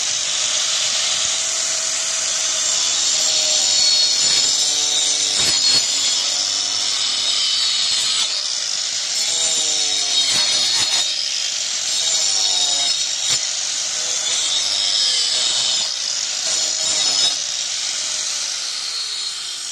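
Angle grinder with a tungsten-grit multipurpose disc running and cutting into a wooden board: a continuous high whine and grinding noise whose pitch falls several times as the disc bites into the wood, with a few sharp clicks.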